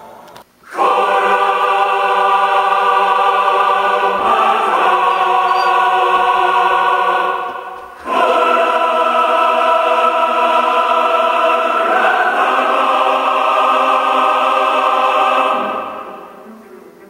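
Choir with orchestra holding long sustained chords in two phrases. The chord shifts partway through each phrase, a brief gap falls between the phrases, and the music fades away near the end.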